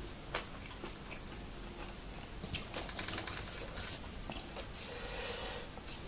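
A person chewing a mouthful of minced buffalo larb, close-miked, with scattered small wet mouth clicks. About five seconds in there is a short rustle as a hand picks at the food.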